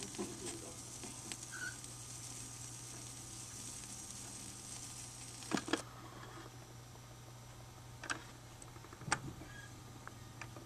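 Vinyl surface noise from a stylus riding a 7-inch single after the song ends: a steady faint hiss over a low hum, with scattered crackles and a few sharper clicks in the second half.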